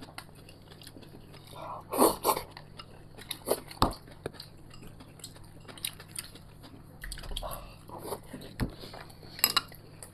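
Someone eating at a table: chewing, with scattered light clicks and knocks of chopsticks against porcelain bowls and a small dish.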